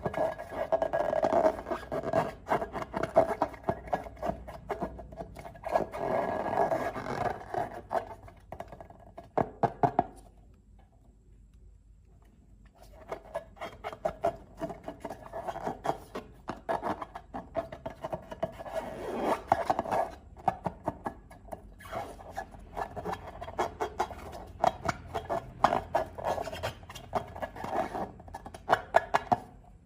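Slime being worked by hand: squishing and crackling with dense little pops and rubbing, stopping for about three seconds around ten seconds in and then going on.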